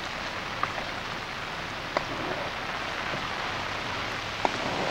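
Steady rain hissing onto floodwater, with a few short sharp taps about half a second, two seconds and four and a half seconds in.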